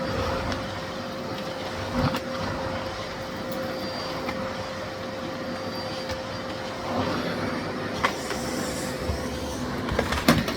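Miele Blizzard CX1 bagless vacuum cleaner running steadily with a constant hum, broken by a few sharp clicks and knocks about two seconds in, around eight seconds in and near the end.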